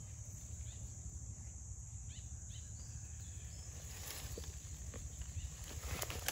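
Komodo dragon tearing at and dragging a goat carcass through dry leaves and twigs: scattered rustles and cracks, the loudest about six seconds in. A steady high insect drone and a low rumble run underneath.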